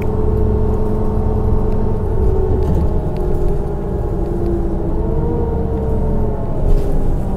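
Diesel drivetrain of a 2009 New Flyer D40LFR transit bus, heard from inside the cabin while it drives: a steady low rumble with a whine that dips in pitch and rises again partway through. A brief knock near the end.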